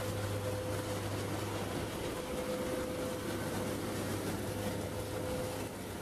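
Asphalt plant machinery running: a steady, even hiss over a low hum, with a faint steady tone that fades out near the end.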